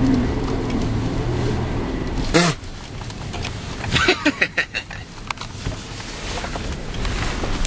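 A Chevy S10 pickup's engine running steadily under load through deep snow, heard from inside the cab. A little over two seconds in, there is a sudden loud whump as the truck plows into a drift and snow sprays over the windshield, and the engine note drops away after it. A short run of laughter follows about a second and a half later.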